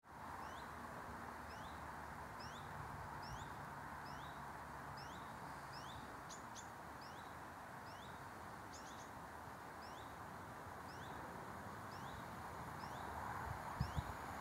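A small bird calling over and over with short, high rising chirps, about two a second, against a steady background hiss. Two brief low thumps near the end.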